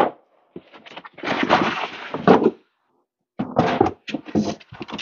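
Cardboard shipping box and its packing being handled and searched by hand: a sharp knock at the start, then two stretches of scraping and rustling.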